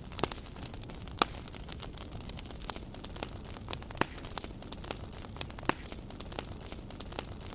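Wood campfire crackling with irregular sharp pops, the loudest about a quarter second in, at about one second, at four seconds and near six seconds, over a low steady rumble.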